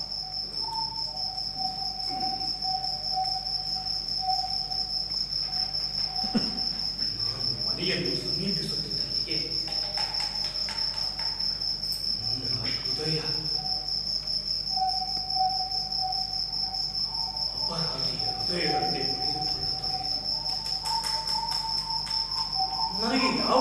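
Steady, high-pitched chirring of crickets, with faint held mid-pitched tones coming and going and a few short, soft low sounds.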